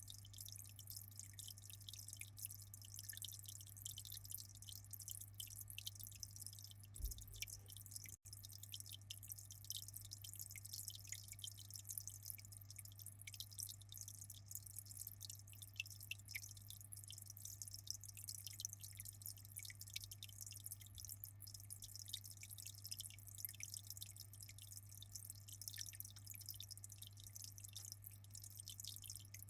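Aquarium water trickling and dripping in a dense, steady patter of small splashes, over a constant low hum.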